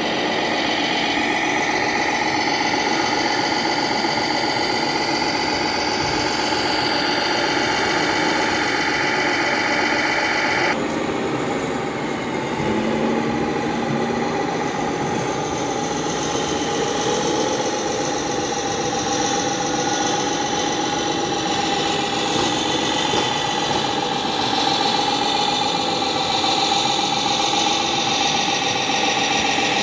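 Engine sounds of radio-controlled model trucks and tractors, running steadily over a dense background din. The sound changes abruptly about eleven seconds in.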